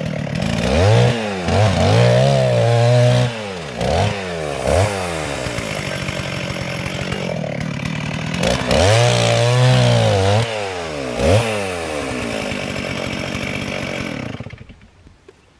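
Chainsaw revved up several times in short cutting spells, dropping back to idle between them, as in small bites taken while felling a leaning elm. The saw shuts off near the end.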